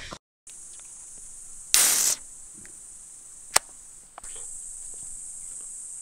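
Steady, high-pitched drone of insects, broken by a short loud rush of noise about two seconds in and a single sharp click a little past halfway.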